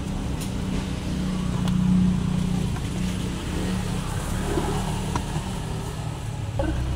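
A steady low mechanical hum, swelling slightly about two seconds in, with a few faint light knocks.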